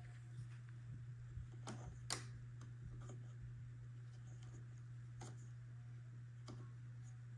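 A faint steady low hum with a few scattered sharp clicks, the loudest about two seconds in.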